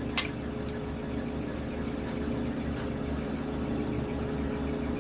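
Metal lathe running steadily, its motor and gear drive giving a constant hum with a pulsing low rumble, and a light tick just after the start.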